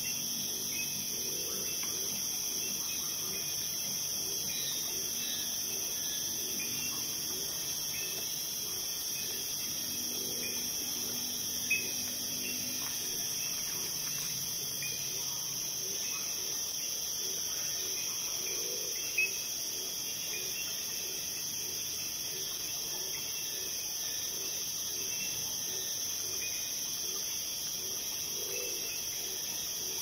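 Night insect chorus of crickets or katydids: a steady, dense high-pitched trilling. Under it a faint low call repeats about twice a second, and two short clicks come about twelve and nineteen seconds in.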